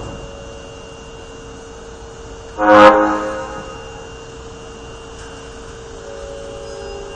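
An Osaka subway 22 series train's door chime sounds once, about two and a half seconds in. It is a short pitched tone that starts sharply and fades, and on this car the chime has an abnormal sound. A steady hum with a faint high whistle runs underneath.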